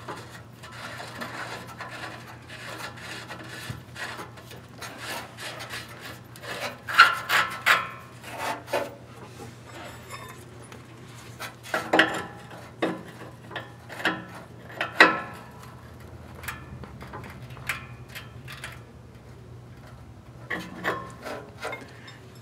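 A new oxygen sensor being screwed into the exhaust pipe and turned with a 22 mm wrench: irregular metal scrapes and clicks, with a few sharper knocks as the wrench is fitted and moved on the sensor, over a steady low hum.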